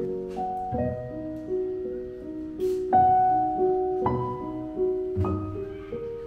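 Background piano music: single notes and chords struck one after another, each fading away before the next.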